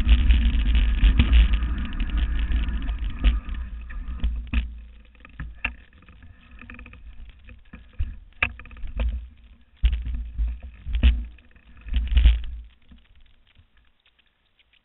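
Low rumble of wind buffeting the microphone on a moving mountain bike, dying away as the bike slows and stops, then a string of short knocks and gusts until about three seconds before the end, when it goes almost quiet.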